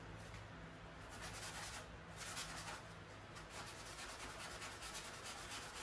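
A small white pad wetted with acetone rubbed quickly back and forth over textured silk wallpaper to scrub out an oily stain: a faint, rapid scratchy scrubbing that starts about a second in.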